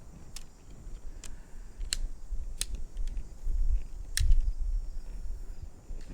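Tent pole sections clicking and clacking as they are handled, about five sharp, irregular clicks over a low rumble.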